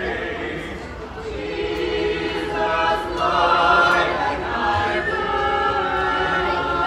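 A small mixed choir of men and women carolers singing a holiday song in harmony, growing louder about three seconds in.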